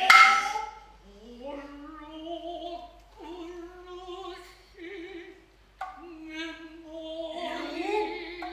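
Noh chant (utai): a slow, wavering sung line with long held notes. It opens with a sharp strike and a loud held tone that fades within a second, and a single sharp knock comes about six seconds in.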